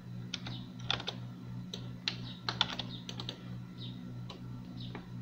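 Computer keyboard keystrokes and clicks, a dozen or so sharp, irregular taps, over a steady low hum.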